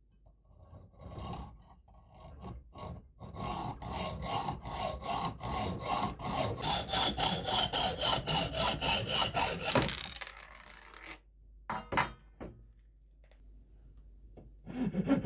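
A hand tool worked back and forth on metal, filing or sawing, at a steady rhythm of about two strokes a second, with the metal ringing faintly under the strokes. The strokes stop about ten seconds in; a few short single scrapes follow, and the stroking starts again near the end.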